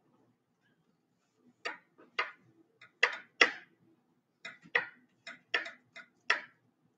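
About a dozen sharp clicks or taps at uneven intervals, bunched in small groups, starting about a second and a half in.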